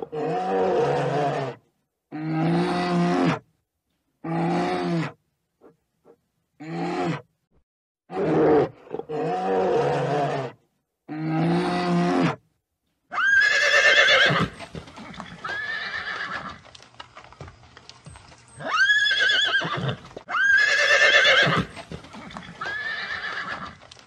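A bear growling in a series of about seven short, low roars with pauses between them. About halfway through this gives way to horses whinnying several times in high calls that waver and fall in pitch.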